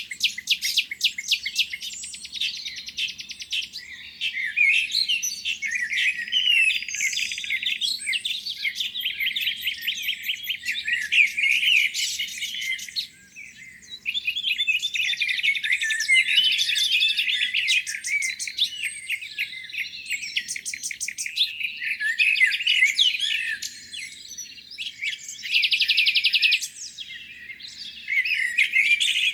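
A chorus of several songbirds singing at once, with fast trills and rapid chirps, briefly thinning out about 13 seconds in.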